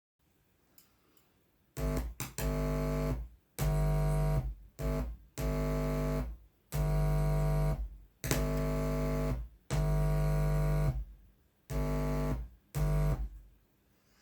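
Synthesizer music: held, bass-heavy chords in short blocks of about a second, each cut off by a brief gap before the next.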